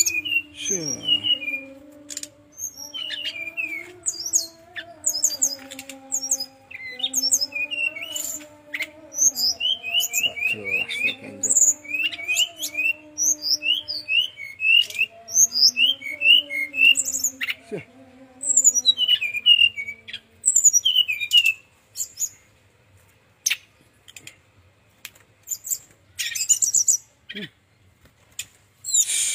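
Brown-chested jungle flycatcher (sikatan rimba dada coklat) singing in quick runs of short, high chirps and slurred notes, sparser near the end. Underneath, for the first twenty seconds or so, a low, wavering drawn-out tone runs in the background.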